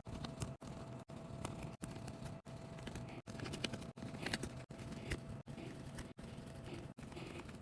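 Faint small clicks and taps of tools and phone parts being handled during phone reassembly, over low room noise with a faint steady hum. The sound is chopped by brief dropouts about every 0.7 s, as in fast-forwarded footage.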